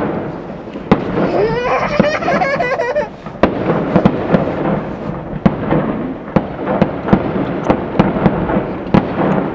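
Fireworks display: a rapid, irregular series of bangs and crackles from bursting shells. About a second in, a rising, wavering tone sounds over the bangs for about two seconds.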